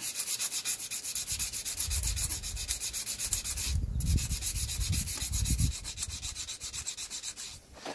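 Rapid back-and-forth scrubbing of rust off the metal of a lawnmower flywheel's magnet section, at roughly nine or ten strokes a second. It breaks off briefly a little before halfway and stops near the end. The rust is being cleaned to bare metal so the magnet fires the ignition coil well.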